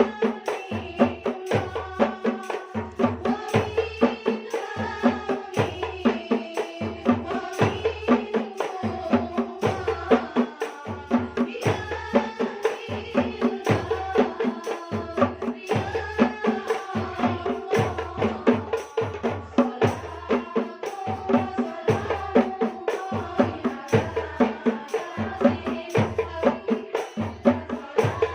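Group singing of Islamic sholawat, accompanied by rebana frame drums beating a steady rhythm of about two deep strikes a second, with jingling clicks on top.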